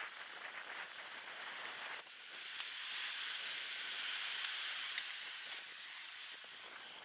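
Small waves washing onto a shell beach, mixed with wind on the microphone. It is a steady hissy rush that swells for a few seconds in the middle, thinned by noise removal and a high-pass filter.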